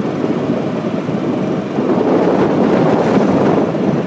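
Steady rumbling noise of a vehicle driving along a paved road, heard from on board, a little louder from about halfway through.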